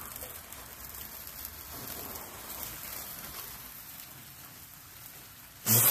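Steady rain falling on a patio. Near the end, a ground bloom flower firework ignites with a sudden loud hiss.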